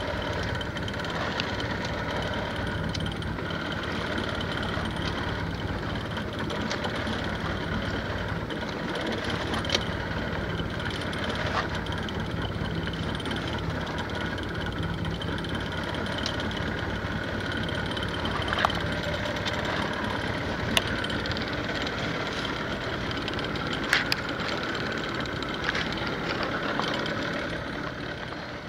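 Boat's engine running steadily at idle, with a few sharp knocks and clicks now and then.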